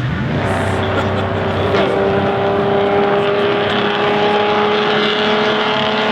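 A historic racing car's engine running hard at high, nearly constant revs: one held note, loud and steady, that climbs slightly.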